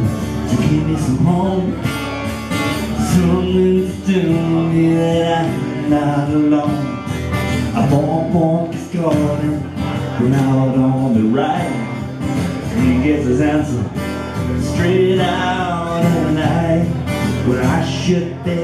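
A man singing to his own strummed steel-string acoustic guitar, played live.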